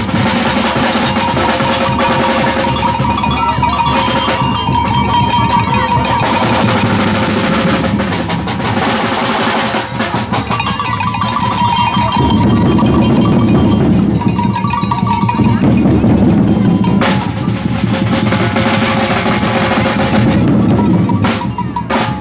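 Batucada percussion group playing a steady samba rhythm on bass drums and snare drums. A held tone sounds on and off over the drums.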